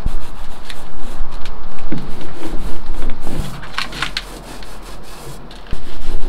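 Paint roller rubbing over a plywood boat hull, rolling on marine topcoat paint, with scattered light clicks.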